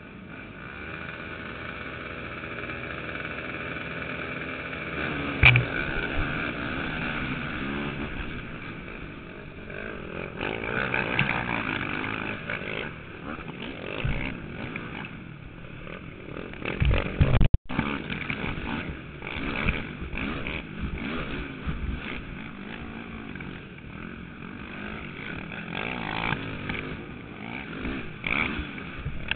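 Dirt bike engines racing, revving up and down, heard up close from the rider's chest. There are loud knocks about five seconds in and again around seventeen seconds in.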